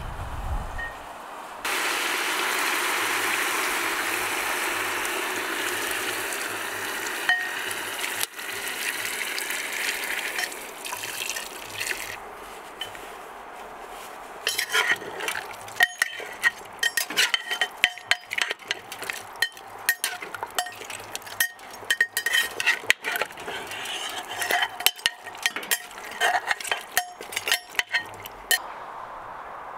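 Cooking pot on the stove. A loud hiss starts suddenly about two seconds in and slowly fades over about ten seconds. Then a utensil clinks and scrapes against the pot many times as the contents are stirred.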